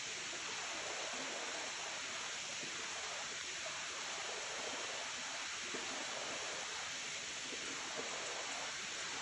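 Steady rush of running water from the Coliban River flowing over rocks below the single-drop Trentham Falls.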